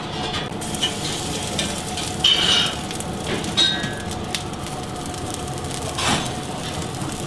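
Foie gras sizzling steadily on a hot plancha (flat-top griddle), its fat frying, with a few light clicks of a metal utensil.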